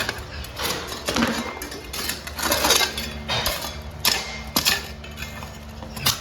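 Metal digging tool scraping and clinking against gravel, rock and broken concrete in a hole, with irregular sharp knocks as it strikes the rubble.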